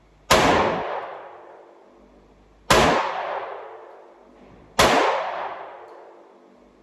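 Three gunshots at an indoor shooting range, roughly two seconds apart, each followed by a long echoing fade.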